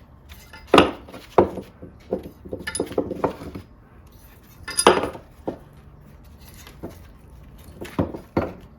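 Steel valves being lifted out of a small-block Chevy cylinder head and handled, with sharp metal clinks and taps: a loud one about a second in, a run of small ones over the next few seconds, another loud one near five seconds and two more near the end.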